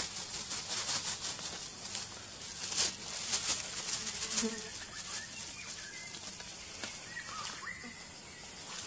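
Steady, high-pitched drone of a forest insect chorus, with scattered short clicks in the first half and a few faint chirps in the second half.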